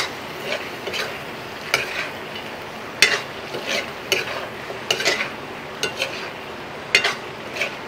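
Metal ladle stirring and scraping chicken curry around a black wok: sharp scrapes about once or twice a second over a steady sizzle of the frying meat. This is the final stir of the finished curry.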